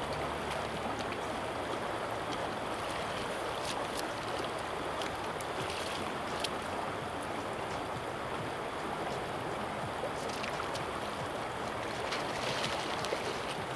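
Steady rush of shallow river water running over a gravel riffle, with a few faint ticks now and then.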